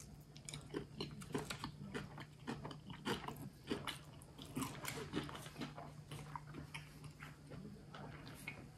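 Close-up chewing of a mouthful of sushi roll: soft, irregular wet mouth clicks and smacks, over a faint steady low hum.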